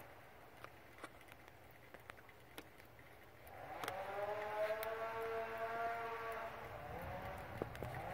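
Chainsaw engine revving up and holding at high speed for about three seconds, then dropping back and revving up again near the end. Before it comes in, a few faint sharp ticks.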